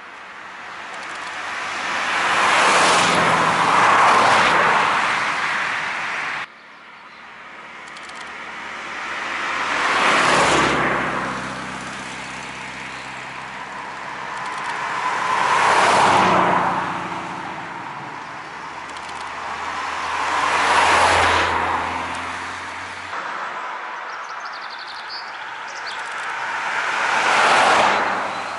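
Rally cars driving past on a paved road one after another, about five passes, each engine swelling as the car approaches and fading as it goes away. The sound breaks off abruptly about six seconds in, where one clip is cut to the next.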